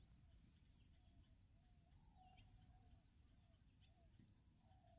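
Near silence: faint outdoor ambience with a faint, high, regular pulsing about two to three times a second.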